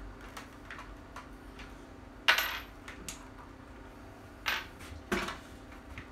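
Hard clacks and knocks as the parts of a pulse rifle prop are handled on a wooden end table. There is one loud clack a little over two seconds in and two more near the end, with light clicking and tapping between.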